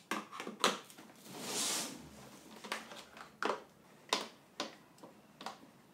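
Handling noise from a wet and dry vacuum's plastic parts: a string of light clicks and knocks, with a short rustling swish about a second and a half in.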